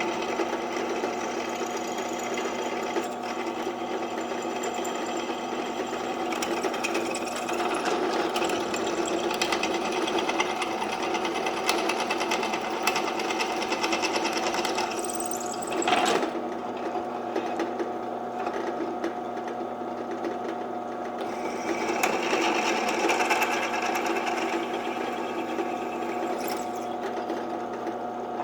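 Electric drill running steadily with a 13/64-inch bit, cutting cross holes through steel flat bar; the cutting noise swells and eases as it feeds, with one brief sharp sound about halfway through.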